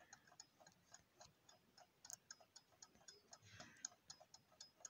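Yantar clock's balance-wheel movement ticking faintly, about five ticks a second. The balance swings with a very small amplitude and gives an extra knock, which the owner says comes despite a perfect hairspring and a fully oiled movement, with no known cause.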